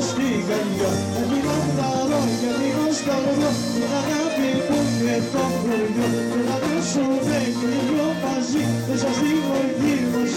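Greek folk dance music led by a clarinet: an ornamented, winding melody over a steady, repeating bass beat.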